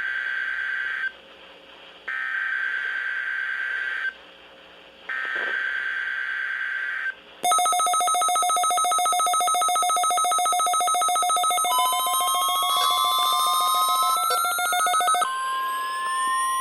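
NOAA Weather Radio Specific Area Message Encoding (SAME) header: three short bursts of screeching digital data with brief gaps. Then weather alert radios set off by the required weekly test sound their alarms: a loud, rapidly pulsing beep, joined about halfway by siren-like tones rising in pitch. Near the end a steady 1050 Hz warning alarm tone takes over.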